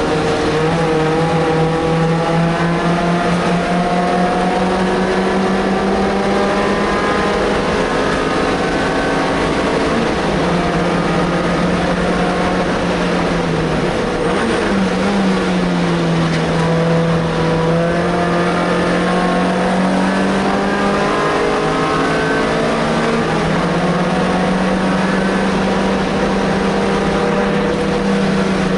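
Race car engine heard from inside the cabin, running hard at high revs. Its pitch holds fairly level but dips and then jumps sharply back up about halfway through, with smaller pitch changes later.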